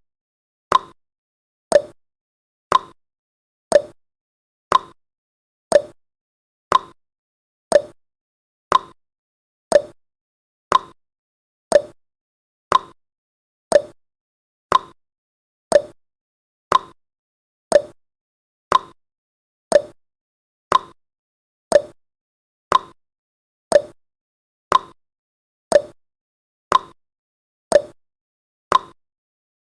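Countdown timer's clock-tick sound effect: one short, sharp tick each second, evenly spaced and alternating slightly higher and lower like a tick-tock.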